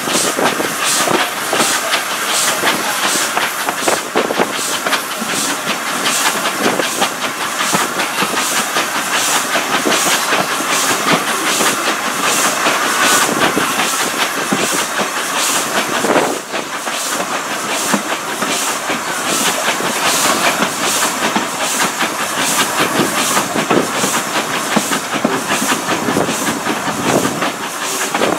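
Heritage steam locomotive hauling carriages at speed, its exhaust beating steadily about twice a second over the rumble and clatter of the carriage wheels on the track. Heard from an open carriage window.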